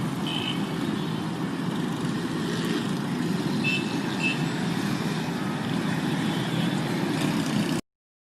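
Steady rumble of a motor vehicle, with three brief high chirps, one near the start and two about midway.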